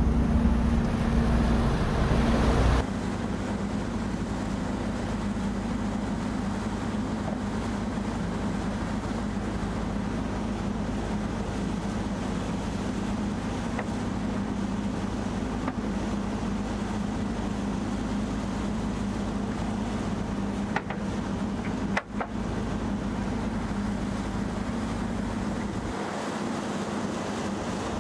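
Steady hum of a motor yacht running underway on Volvo Penta IPS pod drives, with the rush of wake water and wind, louder for the first few seconds. Two sharp clicks come about three-quarters of the way through.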